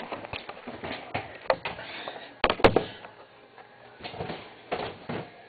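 Handling noise of a video camera being picked up, turned and set back in place: scattered knocks and rubbing, with a sharp double knock about two and a half seconds in.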